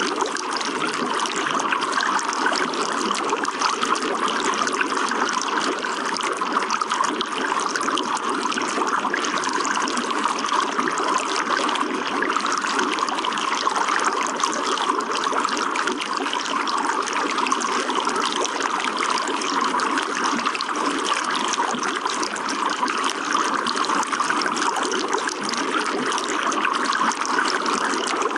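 Running water trickling and splashing steadily and without a break.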